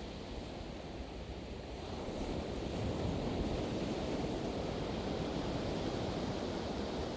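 Pacific Ocean surf breaking and washing ashore, swelling a little about two seconds in, with some wind rumbling on the microphone.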